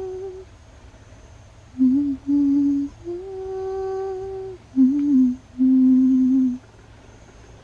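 A person humming a slow lullaby tune in short phrases of held notes, breaking off near the end.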